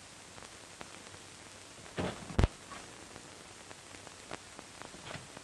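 Steady hiss from an old film soundtrack with faint scattered crackles, and a short louder noise about two seconds in followed closely by a sharp click.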